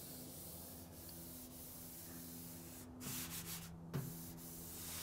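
A bare hand rubbing across freshly wet-sanded paint on a 1973 Mercury Cougar's steel fender, faint, with a few louder strokes about three seconds in. The owner takes the even rub as the sign that the sanding has smoothed the old paint.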